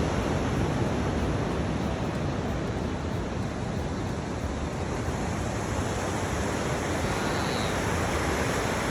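Ocean surf washing against the shore, a steady rushing noise that eases a little midway and builds again.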